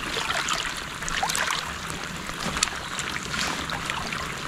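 Small, irregular splashes of hands working an octopus in shallow water as it is gutted and rinsed, over a steady hiss of rain falling on the water's surface.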